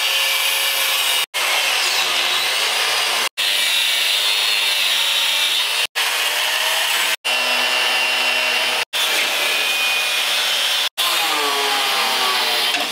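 Electric angle grinder with a cut-off wheel cutting through the steel bed-mounting bolts of a 1958 Chevy Apache, a steady high grinding whine. The sound breaks off for an instant several times, every second or two.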